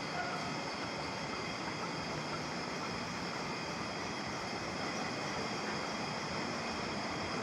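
Steady machinery noise, an even hiss with faint high-pitched tones running through it.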